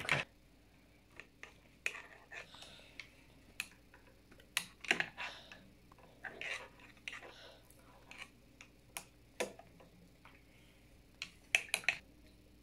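Irregular light clicks and taps of a plastic eyedropper and a plastic cup on a wooden table, with louder clusters of clicks about five seconds in and again near the end.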